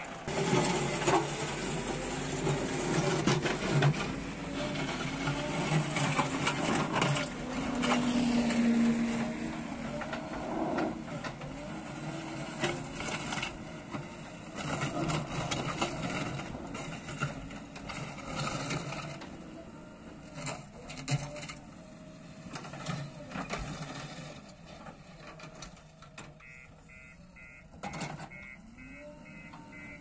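JCB backhoe loader's diesel engine revving and easing under load as its front bucket pushes and spreads loose gravel, with stones clattering and scraping. The engine grows fainter in the second half, and near the end a rapid repeating beeping starts.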